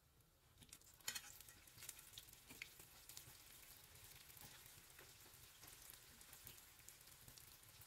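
Hot oil sizzling faintly, with scattered crackles, around yeast-dough pişi rings frying slowly over low heat. A sharp click comes about a second in.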